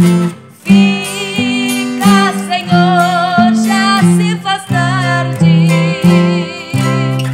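A woman singing with vibrato over a steadily strummed acoustic guitar; the voice comes in about a second in.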